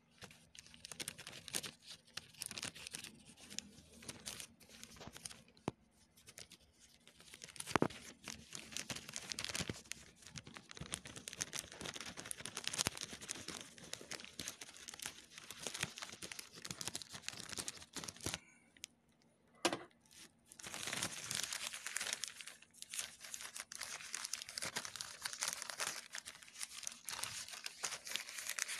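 Plastic courier mailer bags crinkling and tearing as they are handled and cut open with scissors. Two sharp clicks stand out, about eight seconds in and just before twenty seconds, with a brief lull in the rustling just before the second.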